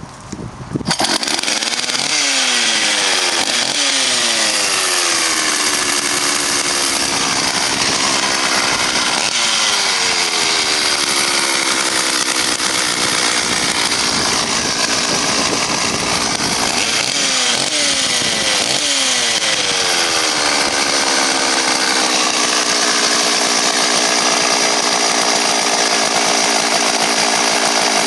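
Stihl 044 two-stroke chainsaw engine running: it comes in loudly about a second in, then is revved up several times, each time falling back toward a lower idle.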